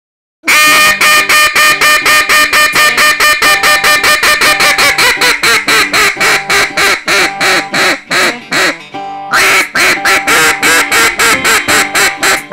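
Wing Nutz Ace single-reed acrylic duck call blown in a long, loud run of quick mallard quacks, about five or six a second, with one short break about three-quarters of the way through before the quacking resumes.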